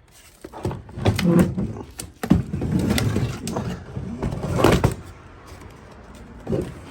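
Badly deteriorated wooden cabinet being pulled off an old Singer treadle sewing machine base: a run of cracking, scraping and knocking noises with sharp clicks, easing off after about five seconds.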